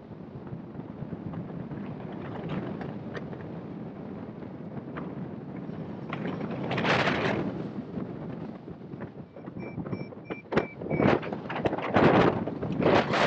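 Airflow rushing over a hang glider's keel-mounted microphone in flight, rising in gusts about halfway through and again near the end. A few short high beeps sound briefly just before the last gusts.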